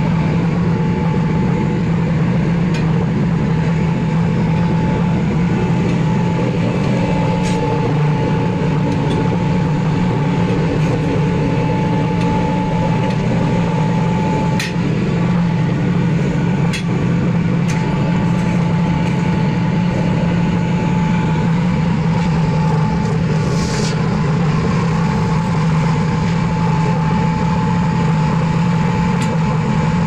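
Electric air blower forcing air into a furnace fire: a loud, steady drone with a thin high whine over it, and a few faint clicks.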